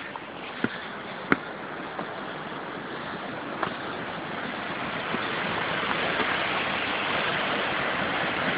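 Waterfall rushing as a steady roar of water that swells louder over the first few seconds and then holds. A few sharp clicks sound in the first few seconds.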